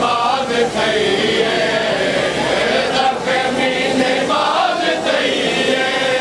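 A group of men chanting a noha, a Shia mourning lament, together in sustained sung lines.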